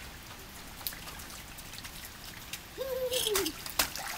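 Steady rain pattering with scattered drips. About three seconds in comes a short, falling vocal sound from a child, with a few sharp splashes.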